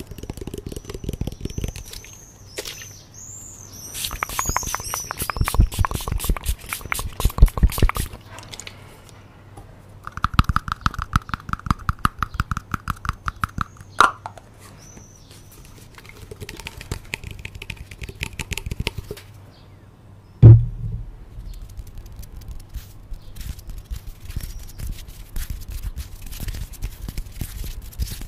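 Close-miked ASMR trigger sounds made by hand on a condenser microphone: fingers rubbing, scratching and tapping at its grille in quick runs of crackling clicks. A steady buzzing tone lasts about four seconds a little past a third of the way in, and one loud thump comes about two-thirds of the way in.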